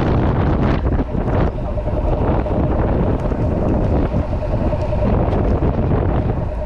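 Mercury outboard motors running steadily under load while towing a swamped boat, with water churning in the prop wash and wind buffeting the microphone.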